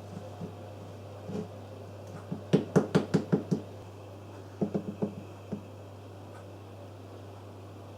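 Hard knocks in two quick runs, about seven in a second and then about five more, over a steady low hum.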